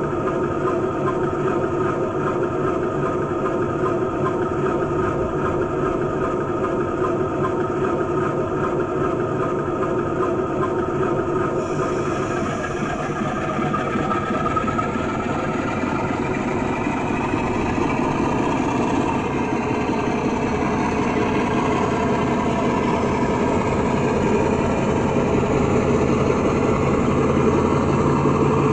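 DCC sound decoder in an O gauge Class 47 model playing a recording of the Sulzer 12LDA28 diesel through the model's speaker. The engine idles steadily. About twelve seconds in, a hiss comes in as the handbrake function is worked, and the engine then builds up louder as the loco pulls away.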